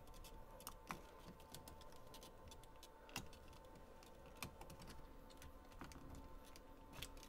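Faint, irregular plastic clicks and ticks from a nylon zip tie being fed into its anchor among the printer's wiring, over a faint steady hum.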